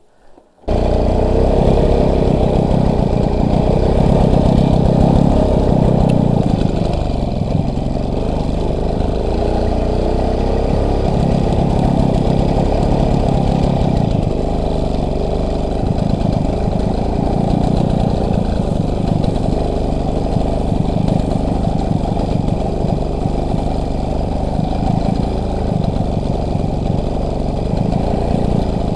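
Motorcycle engine running steadily, cutting in suddenly less than a second in.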